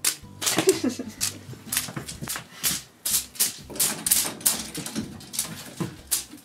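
Quick, irregular clicks and clatters, about three or four a second, from a cat pouncing and leaping at a feather toy, its paws and claws striking the floor.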